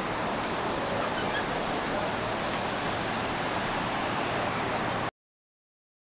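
Steady rush of ocean surf on the beach, which cuts off suddenly about five seconds in.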